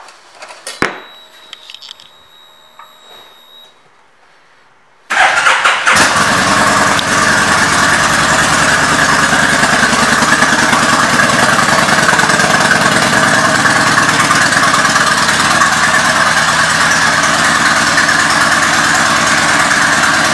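The key is turned with a click, followed by a faint high whine lasting about three seconds. About five seconds in, the Kawasaki Vulcan 1600 Nomad's V-twin engine starts and settles into a steady idle.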